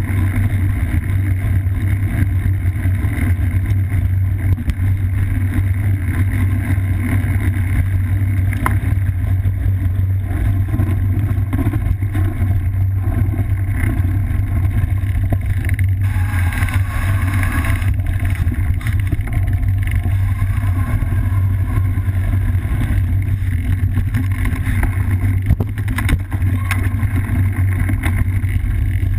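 Cyclocross bike riding a dirt singletrail, heard through a camera mounted on the bike: a steady low rumble of tyres, frame vibration and wind on the microphone, with a few short knocks from bumps and a brief hiss a little past halfway.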